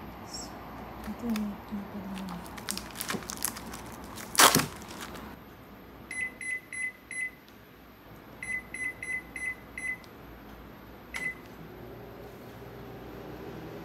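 Crinkling handling sounds and a sharp knock about four and a half seconds in. Then a kitchen appliance's control panel beeps as its buttons are pressed: four quick beeps, five more, then a single beep. A low steady hum starts near the end, as the appliance begins running.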